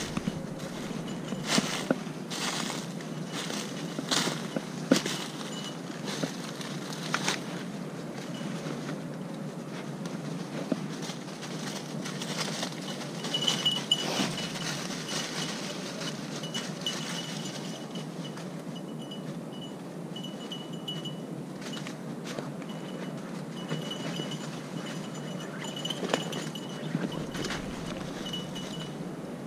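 Footsteps crunching through dry leaf litter and brush, with twigs snapping now and then. About halfway through, a faint high ringing tone starts and comes and goes.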